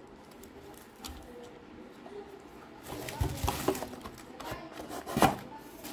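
Handling sounds of unpacking a box: rustling and scraping of packaging starting about three seconds in, with a sharp knock a little past five seconds.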